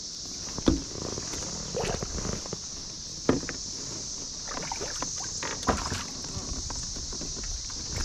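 Knocks and handling noises on a kayak as a rock bass is netted, with a few sharp knocks about a second, three seconds and five and a half seconds in. A steady high insect buzz runs underneath.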